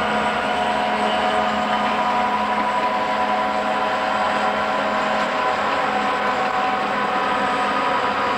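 Steady running noise of Southern Pacific six-axle diesel freight locomotives, heard through the trees from a moving car, mixed with the car's own road noise. Several steady whining tones run throughout, and a low hum fades out about halfway through.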